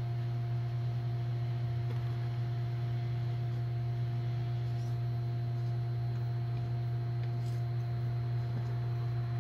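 A steady low hum with fainter higher tones above it, holding an even level throughout; no sound of the threading stands out over it.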